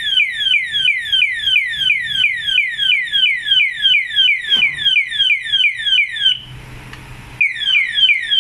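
Alarm padlock's built-in anti-theft siren sounding: a rapid, loud series of falling electronic chirps, about three a second. It breaks off for about a second near the end, then starts again.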